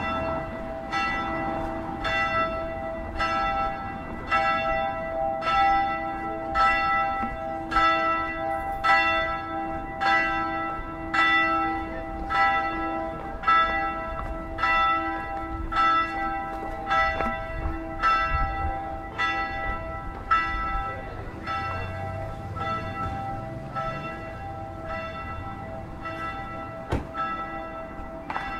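A church bell tolling, one bell struck over and over at an even pace of a little under one stroke a second, each stroke ringing on into the next; the strokes grow fainter in the last several seconds.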